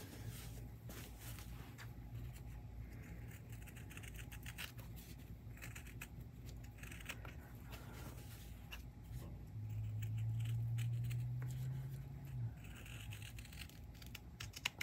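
Fabric scissors cutting a curve through thick layered fabric in a run of short, crisp snips. A steady low hum lies underneath and swells louder for about three seconds after the middle.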